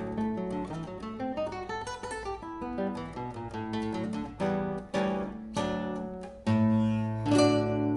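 Solo acoustic guitar playing a choro: a run of quick plucked notes, then a series of separate chords, the last struck about seven seconds in and left ringing.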